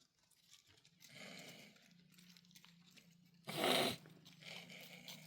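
A livestock animal's short, loud, harsh call about three and a half seconds in, after a softer noisy sound about a second in, over a faint steady low hum.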